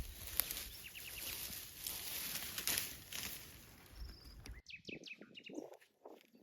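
Small birds chirping over a hissy outdoor background with occasional light clicks. About two-thirds in, the hiss drops away abruptly and the bird calls stand out more clearly.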